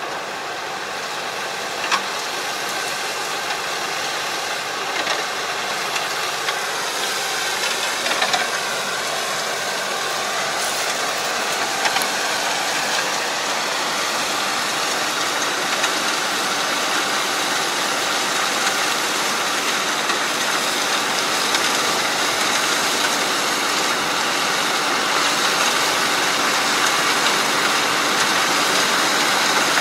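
Kubota tractor engine running steadily as it puddles a flooded rice paddy with a rear harrow, growing gradually louder as the tractor approaches.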